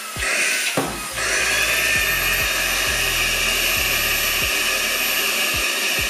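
AutoBot VX cordless handheld vacuum cleaner with a brushless motor running steadily, its nozzle covered by a palm that the suction holds in place. The whine dips and wavers briefly at the start and about a second in, then runs evenly.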